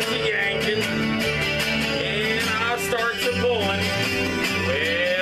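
Acoustic guitar strummed in a steady rhythm, with a wordless, wavering voice sliding up and down in pitch over it.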